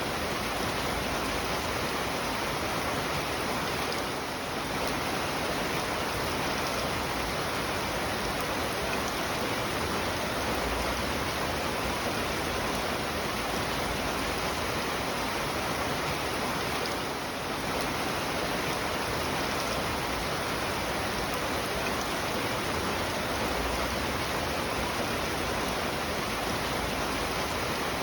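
Rain falling steadily, an even hiss with no separate drops standing out, dipping slightly in loudness twice.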